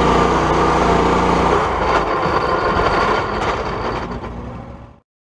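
Garden tractor engine running hard while pulling a weight sled on a tractor-pull track. About one and a half seconds in, the steady engine note drops away into rougher noise that fades out to silence just before the end.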